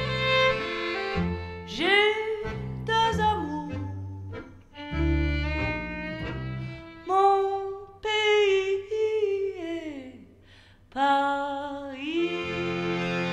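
Acoustic trio of violin, chromatic button accordion and double bass playing a tune, with notes sliding up into place and falling away at phrase ends. The music thins out briefly about ten seconds in, then the ensemble comes back in together.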